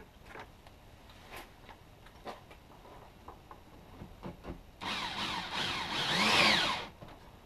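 Electric drill driving a screw into a wooden board for about two seconds, its motor whine rising and falling in pitch as the screw goes in, then stopping suddenly. Before it, a few light clicks and knocks of the wooden parts and screws being handled.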